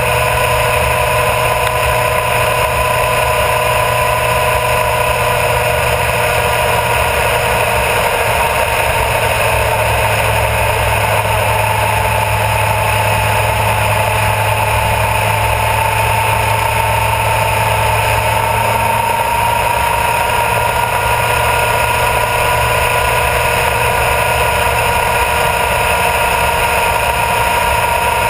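Honda CBR1000RR Fireblade's inline-four engine running at a steady cruise, with wind and tyre noise. Its pitch sags a little about a third of the way in and climbs back up later on.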